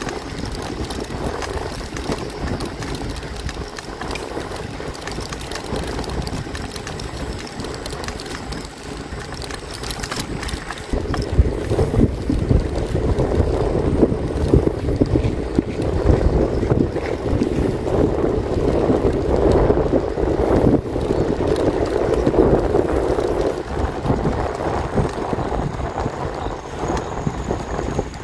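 Wind buffeting the microphone of a moving bicycle, over a steady rush of tyre and road noise. It grows louder and gustier about eleven seconds in.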